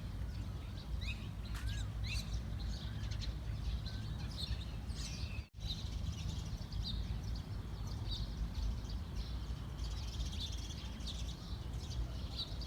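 Small birds chirping and calling, many short chirps and little rising whistles, over a steady low background rumble. The sound drops out for an instant about halfway through.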